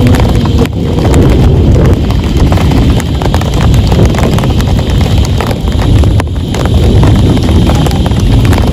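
Heavy rain falling on a tent, a dense, loud patter of many drops over a steady low rumble.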